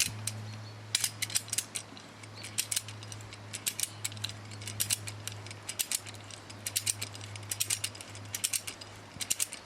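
Strainrite universal ratchet handle clicking as it is swung back and forth to tighten a permanent wire strainer on high-tensile fence wire. The spring-loaded pawl makes short bursts of rapid clicks, about one burst a second, over a faint steady hum.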